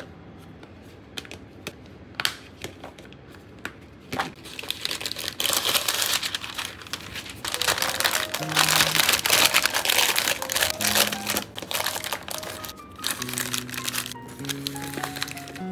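A few light plastic clicks as a pink folding plastic sandwich lunchbox is handled, then loud crinkling of a printed paper wrapping sheet being pressed and folded into the box, over soft background music whose notes come forward near the end.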